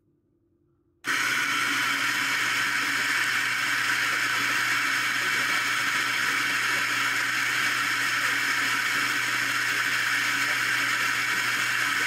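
Eureka Mignon Crono burr grinder switching on about a second in and running steadily, grinding coffee beans into the dosing cup. This is a weight-controlled dose started by an add-on controller through the grinder's motor relay.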